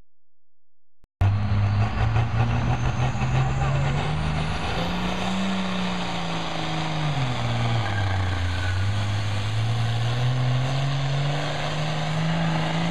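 John Deere farm tractor's diesel engine running hard under full load as it drags a weighted pulling sled. It cuts in suddenly about a second in, then its pitch climbs, sags in the middle of the pull and climbs back again.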